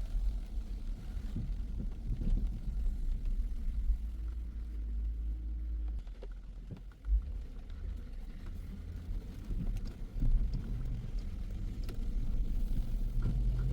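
Low, steady rumble of a car driving, engine and road noise, easing for a moment a little past the middle, with a single thump about seven seconds in.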